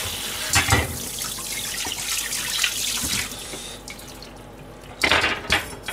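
Kitchen tap running into the sink, turned off a little over three seconds in, followed by a few knocks of things handled at the sink near the end.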